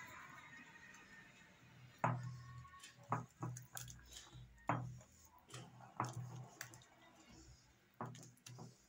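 Semolina and milk being mixed by hand in a glass bowl into a runny harcha batter: soft squishing with a series of sharp knocks against the glass, the loudest about two seconds in.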